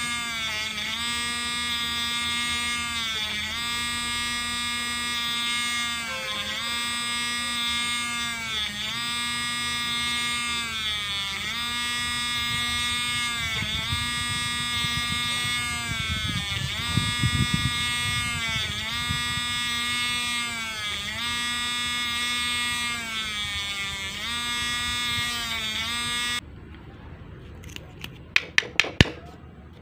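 Small pen-style electric rotary tool whining steadily, its pitch dipping briefly about every two seconds as the bit loads into the plastic of a PVC end cap, hole after hole. The motor cuts off suddenly near the end, followed by a few sharp clicks of the cap being handled.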